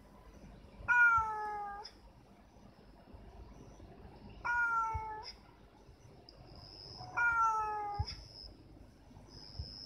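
A cat meowing three times, a few seconds apart; each meow is under a second long and slides slightly down in pitch.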